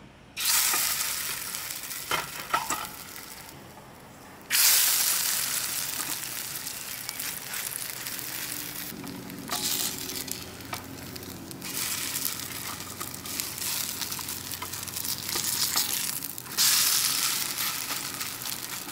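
Potato cakes frying in hot oil in a camp-stove pan: a steady sizzle that flares up loudly about four times as patties go into the oil and are turned, easing off between.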